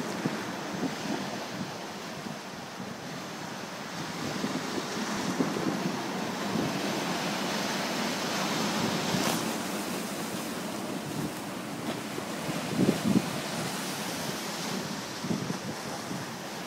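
Sea surf breaking and washing over shore rocks in a continuous rush, with wind buffeting the microphone and a louder surge about thirteen seconds in.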